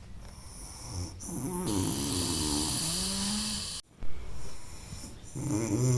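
A man snoring loudly in deep sleep: one long, wavering snore in the first half, then another beginning near the end.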